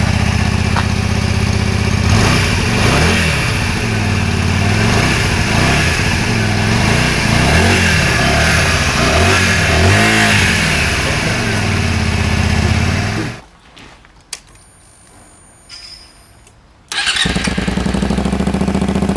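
Honda Varadero 125's V-twin four-stroke engine running through its standard exhaust, idling and revved in about five quick blips that rise and fall in pitch. About thirteen seconds in the sound drops away to a quiet gap. Some four seconds later the engine is heard idling again, now through a Devil Magnum aftermarket silencer.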